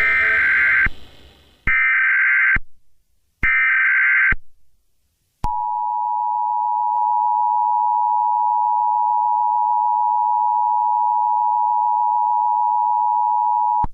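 Emergency Alert System broadcast tones. First come three short bursts of the SAME header's data tones, about a second each with pauses between. Then the two-tone EAS attention signal (853 and 960 Hz) comes in about five seconds in and holds steady for about eight seconds.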